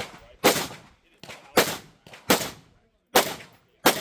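Five pistol shots from an Open-division Glock firing handloaded ammunition, at uneven intervals of about half a second to a second, each fading quickly.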